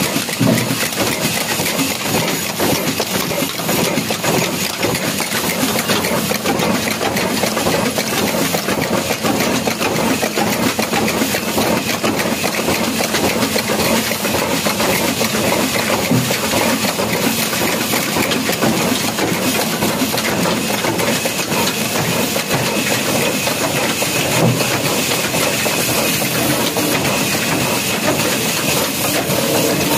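Old Ruston horizontal single-cylinder diesel engine running steadily, its big flywheel turning, with a fast, even mechanical clatter from the engine and its moving parts.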